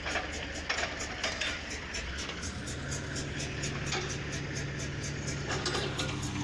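Heavy diesel engine running steadily. Its low note changes about two seconds in, with a few short knocks and clanks over it.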